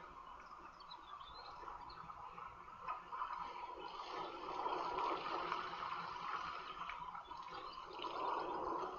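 Outdoor bush ambience: a steady hiss of background noise with a few faint bird chirps near the start.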